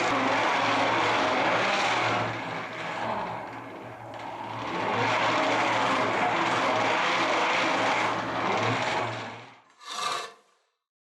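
Electric abrasive power tool running under load with a steady motor hum. It eases off for a couple of seconds, picks up again, and stops about nine seconds in. A short swish follows.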